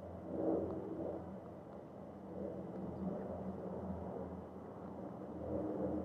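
A low, steady rumble with a hum underneath, swelling briefly about half a second in and again near the end.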